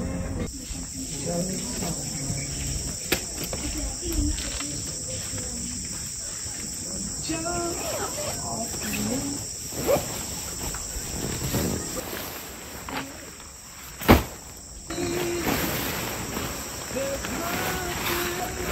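Steady high-pitched chirring of insects, with a few short knocks over it, the loudest a sharp one about fourteen seconds in.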